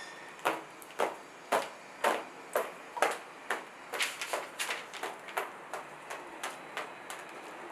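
Pink paint being flicked by hand and spattered onto a canvas: a run of sharp taps about twice a second, growing weaker after the middle.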